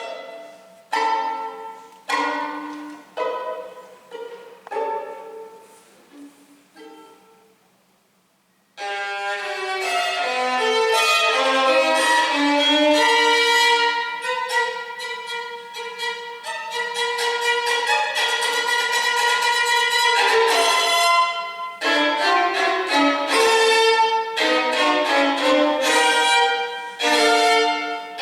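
Violin music. It opens with a string of plucked notes, each dying away, then falls silent briefly about eight seconds in. A sustained bowed melody follows.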